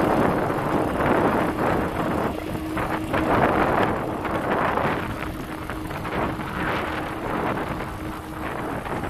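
Wind buffeting the microphone and tyre noise from a bicycle riding fast, with a steady whine from the 250 W rear hub motor. The whine stops near the end as the motor runs out of RPM close to 30 km/h and its power output falls to zero.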